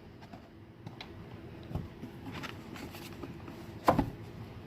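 Product packaging being handled during an unboxing: a few faint taps and one sharp click or knock just before four seconds in.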